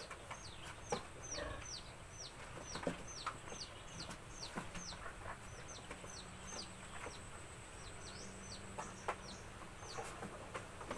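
Chicks peeping: a long run of short, high calls, each falling in pitch, about three a second, with a short pause about seven seconds in.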